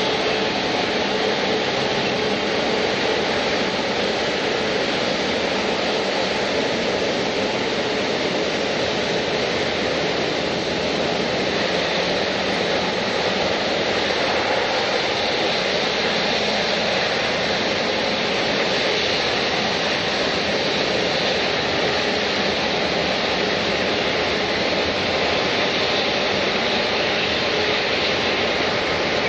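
Jet airliner engines running steadily, a constant, even rushing noise with no rise or fall.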